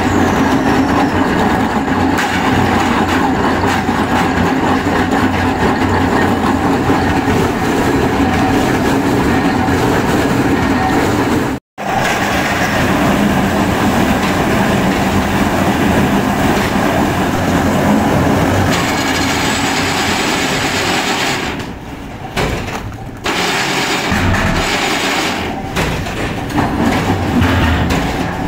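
Steady mechanical din of plywood factory machinery running. The sound cuts out for an instant about a third of the way through, then carries on.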